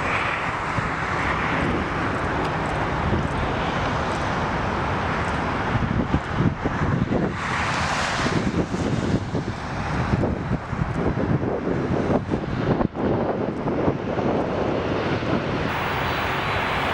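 Jet engines of a four-engine British Airways Airbus A380, a steady rushing noise, overlaid with heavy wind buffeting on the microphone that swells about halfway through.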